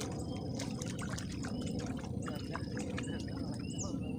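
Waterside ambience: a steady low rush with many short, high chirps and clicks scattered over it, like small birds or insects calling.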